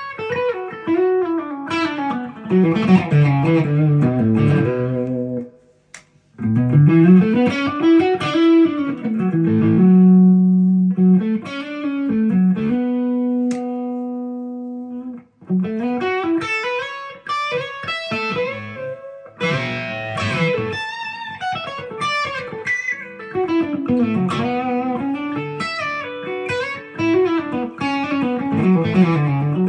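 Epiphone Les Paul Custom electric guitar being played: melodic runs and phrases, with a short break about six seconds in and long held notes between about ten and fifteen seconds in.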